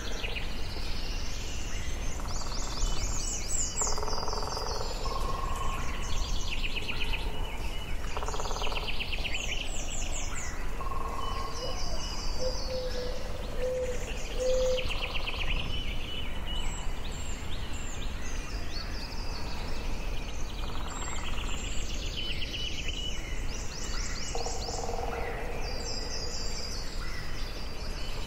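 Forest ambience: several birds singing and calling one after another, with rapid high trills coming every few seconds and some lower, shorter phrases between them, over a steady low rumble of background noise.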